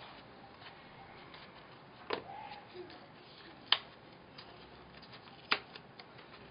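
Hands handling EVA foam craft pieces: three sharp clicks spread over several seconds, one with a faint short squeak just after it, over low room hiss.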